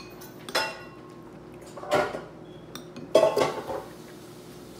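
Utensil and food being worked against a ceramic plate: three clinks and scrapes, each ringing briefly.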